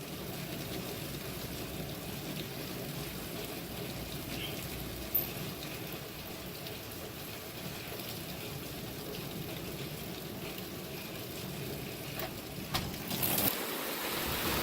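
Storm rain and gusting wind making a steady rushing noise, which grows louder with a stronger gust near the end.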